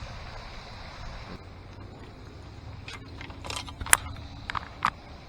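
Steady low rumble of distant traffic, with a handful of sharp clicks and taps, the loudest about four seconds in.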